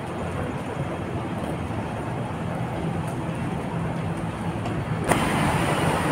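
Steady city street noise of road traffic. About five seconds in a sharp knock, after which the noise is louder and brighter.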